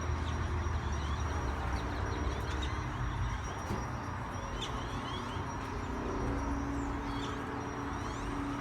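A large flock of birds calling at once: a dense, continuous chatter of short chirps over a low, steady traffic rumble.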